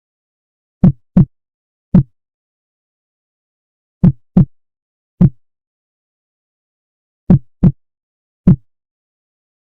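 Heart sounds: short low thumps in groups of three, the first two close together and the third a little later. The groups repeat about every three seconds, with silence between them.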